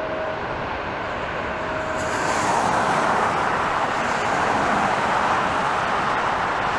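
Jet airliner engines during a takeoff: a steady rushing roar that swells louder and brighter about two seconds in and then holds.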